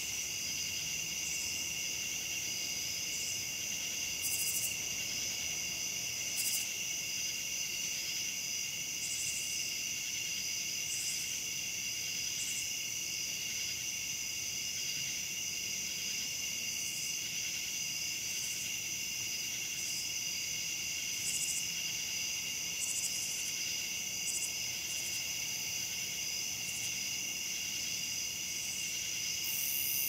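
Night insect chorus of crickets and katydids: a steady, high, unbroken trill, with short, higher-pitched calls every second or two. The high calls grow a little louder near the end.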